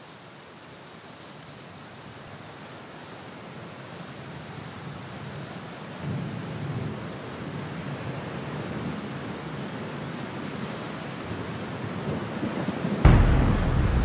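Heavy rain pattering and splashing into a muddy puddle and onto a gravel trail: a steady hiss that grows louder, with a sudden louder, deep rumble coming in about a second before the end.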